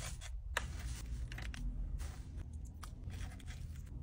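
Faint rustling and light clicks of a hand handling food in a foil tray, over a steady low hum inside the car.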